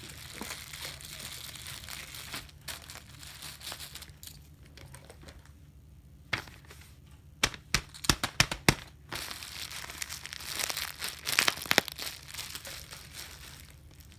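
A clear plastic zip-lock bag crinkling as it is handled, in two stretches. Between them come a quick run of sharp clicks and snaps, the loudest sounds here.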